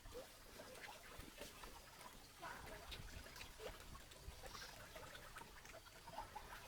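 Near silence, with faint scattered clicks and a few brief chirps.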